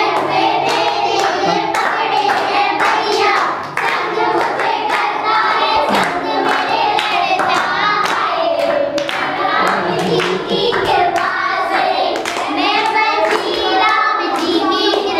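A group of children singing a song together while clapping along.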